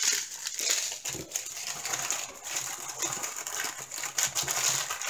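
Small plastic bags of diamond-painting drills being handled: crinkling plastic, with the tiny resin drills clicking and rattling inside the bags in irregular bursts.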